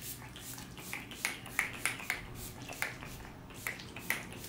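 Pump-mist bottle of All Nighter vitamin C makeup setting spray spritzed again and again at the face, quick hissing puffs at about four a second. It sprays a little too much.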